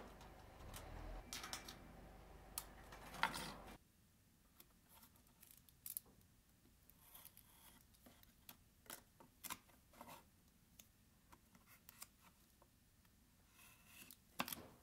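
Hand tin snips cutting a thin brass sheet: a few sharp cuts over roughly the first four seconds. After that, only faint scattered clicks and scrapes of small hand work with a utility knife and a roll of double-sided tape, with a brief louder rustle near the end.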